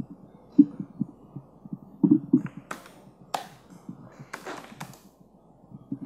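Typing on a laptop keyboard: irregular soft key thuds, with a few sharper clicks in the middle.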